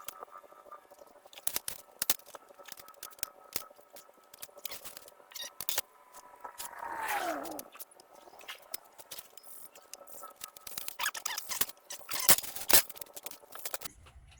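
Irregular knocks, clicks and clatter of metal table legs and tools being handled and set down on a wooden countertop, with a sharp pair of knocks near the end. About seven seconds in, a short squeal falls steeply in pitch.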